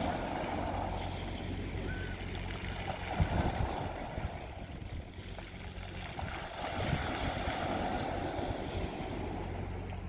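Small waves breaking and washing up a pebble beach, swelling twice about seven seconds apart. Wind buffets the microphone briefly, and a steady low hum runs underneath.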